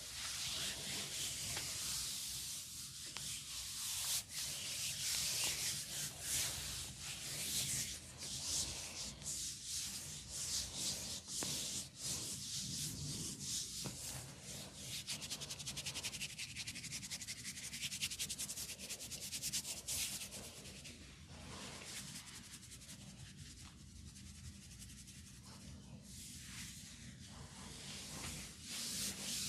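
Hands rubbing and scratching through hair on the scalp during a head massage: a continuous dry, crackly rustle that softens about two-thirds of the way through.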